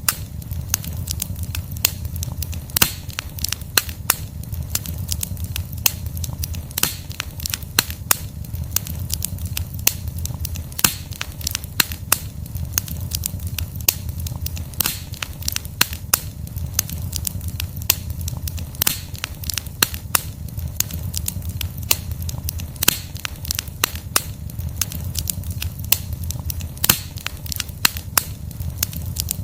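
Burning log campfire: wood crackling and popping in dense, irregular snaps, with a steady low rush of flame underneath.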